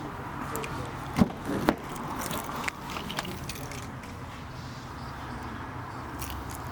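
A vehicle engine running steadily, with two sharp knocks a little over a second in, followed by a few lighter clicks.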